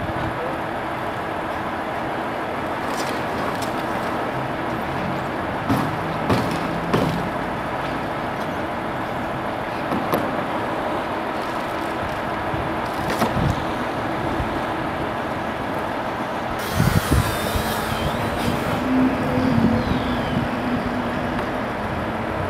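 Steady vehicle engine and traffic noise, with a few scattered knocks and, about three-quarters of the way through, a brief hiss and low thumps.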